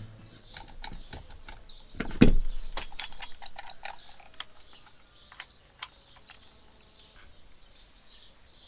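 A dull knock about two seconds in, then scattered small clicks and taps of things being handled, with birds chirping faintly in the background.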